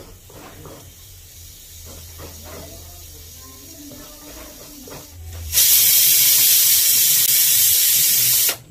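Stovetop pressure cooker venting steam: a loud, steady hiss starts suddenly about five and a half seconds in, holds for about three seconds and cuts off sharply. Before it there is only faint kitchen clatter.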